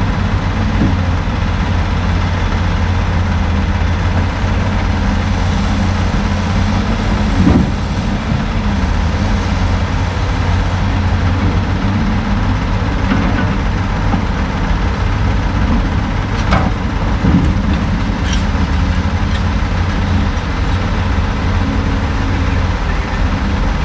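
Heavy diesel engines running steadily as a CAT log loader works beside an idling Kenworth T800 logging truck. A few knocks from logs and the grapple, one about seven seconds in and several around seventeen seconds in.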